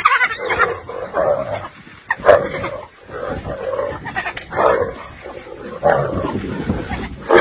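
Spotted hyena and African wild dogs fighting, a fast run of short cries and calls with loud sharp cries about two, four and a half and six seconds in.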